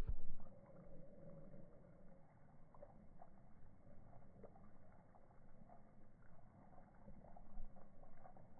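Faint, muffled splashing of a hose's water jet, with scattered faint ticks of a dog lapping and gulping at the stream.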